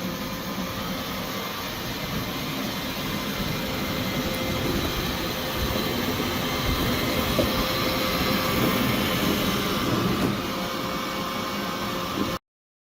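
Roomba i7+ robot vacuum cleaning: a steady running noise from its vacuum motor and brush rolls with a faint hum, growing somewhat louder through the middle as it works a dirty spot, then cutting off suddenly near the end.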